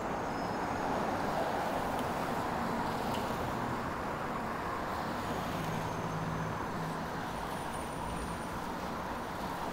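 Steady city street traffic: cars running past with engine and tyre noise, one vehicle's engine hum a little stronger about five seconds in.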